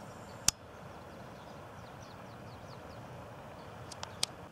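Steady outdoor rushing noise with one sharp click about half a second in and two fainter clicks near the end.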